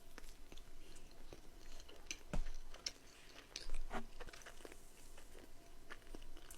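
Close-miked biting and chewing of a soft cookie, with many small mouth clicks and two louder bites about two and a half and four seconds in.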